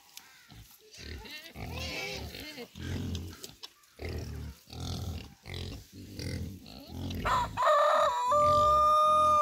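Pigs grunting repeatedly in short low bursts. Near the end a rooster crows, one loud drawn-out call that steps up in pitch and then holds steady for over a second.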